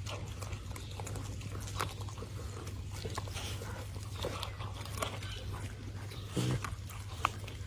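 A puppy chewing and crunching on a chunk of raw goat neck, with many irregular wet clicks and bone crunches over a steady low hum. A short low growl comes near the end.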